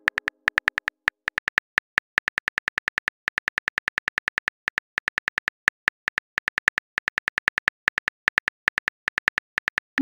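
Keyboard click sound effects from a phone texting app, one short tick per typed letter, coming quickly at about five or six a second with a few brief pauses.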